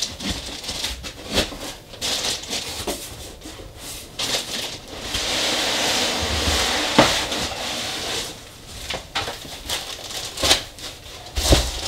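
Foam packing sheets and cardboard being handled in a shipping box: scattered scrapes, rustles and knocks, with a longer sliding, rustling stretch about five seconds in that ends in a sharp click.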